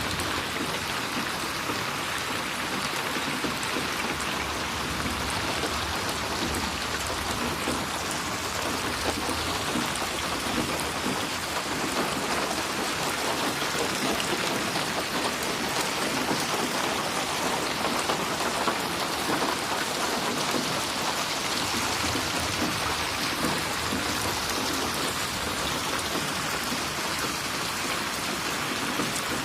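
Steady rain falling and splashing on a surface, a dense, even patter with no thunder.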